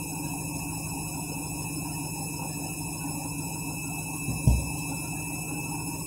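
Washing machine running with a steady motor hum, broken by a single deep thump about four and a half seconds in, typical of an out-of-balance drum knocking inside the cabinet.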